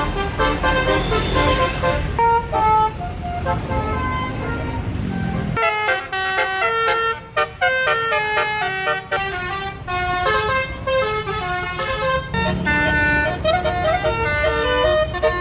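Tour bus's basuri musical horn playing a tune in quick stepped notes, with the bus's engine rumbling underneath at the start and again near the end.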